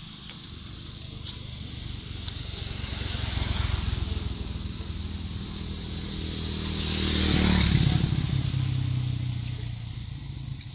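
Two motor vehicles drive past one after the other on a road, their engines and tyres each swelling in and fading away. The second is louder and passes about seven to eight seconds in.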